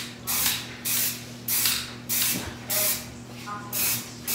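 Aerosol can of Rust-Oleum frosted glass spray paint spraying in a quick series of short hisses, about one every two-thirds of a second, as the nozzle is pressed and released over and over.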